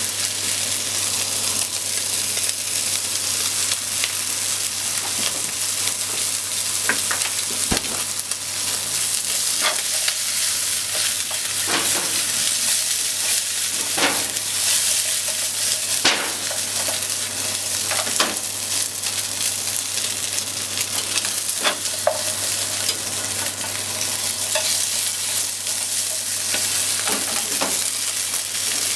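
Salmon and sliced potatoes sizzling in a non-stick frying pan while being stirred with chopsticks: a steady frying hiss, with scattered sharp clicks and scrapes as the chopsticks knock against the pan.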